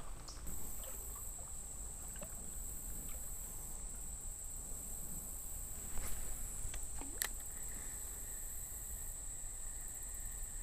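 Insects droning steadily on one high-pitched note, with a fainter, lower drone joining about seven seconds in. A brief swish sounds about six to seven seconds in.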